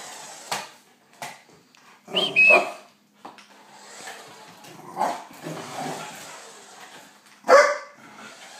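Puppy giving a few short barks and yips, the loudest bark near the end.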